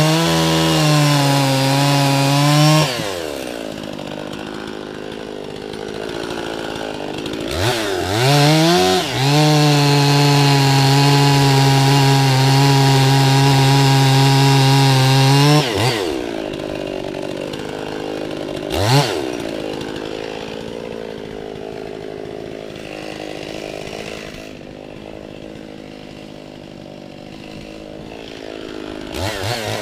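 Two-stroke chainsaw cutting through a firewood log at full throttle, dropping to idle about three seconds in. It revs back up around eight seconds and cuts steadily until about sixteen seconds, then idles with one quick rev near nineteen seconds and revs up again at the end.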